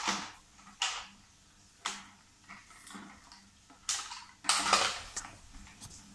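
Several sharp, irregular plastic clacks and knocks as toy race cars are handled and set down on a cardboard track and a tiled floor.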